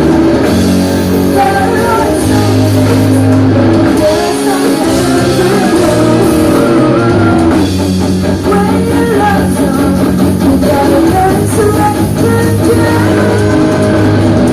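Live pop-rock band playing, with electric guitar, bass and drums and a melody line over them.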